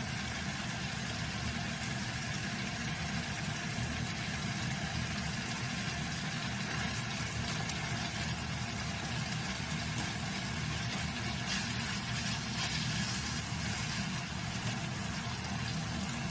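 Pork, glass noodles, onion and green pepper simmering and sizzling in a frying pan as the japchae sauce cooks down, over a steady low hum.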